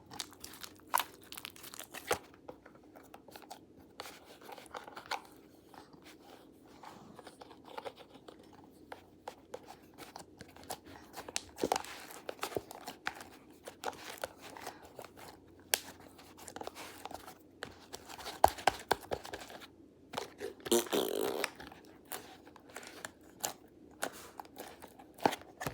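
Stretchy, glossy slime being stretched and squeezed by hand: irregular sticky clicks, pops and crackles, with a denser squelching burst about 21 seconds in.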